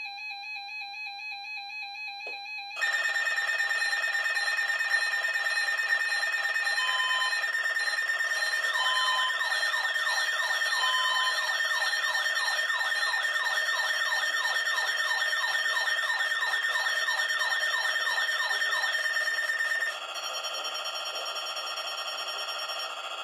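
Several weather radios sounding their alert alarms at once, among them an Eton FR800 and a Zone Guard Plus, set off by the weekly test signal as an unrecognized message. A pulsing alarm tone is joined about three seconds in by a louder steady tone, short beeps and a fast up-and-down siren warble. The steady tone cuts off near the end, leaving softer tones.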